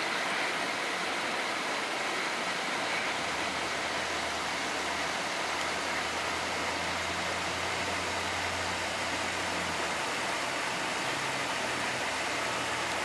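Steady outdoor hiss with the low hum of an engine running, which comes in about three seconds in and fades out about ten seconds in.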